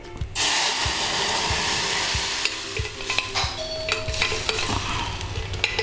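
Drumstick-leaf soup poured from a pressure cooker into a pan of hot tempering oil with mustard seeds and urad dal, sizzling sharply as it hits. The hiss starts suddenly just after the start and eases over the following seconds, with a few small clinks.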